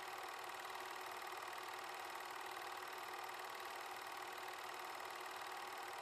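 Film projector running, a steady mechanical whir that holds unchanged throughout.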